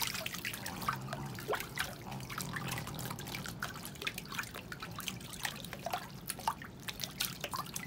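Shallow paddling-pool water making small irregular splashes and drips as a pug stands and shifts its legs in it, over a faint steady low hum.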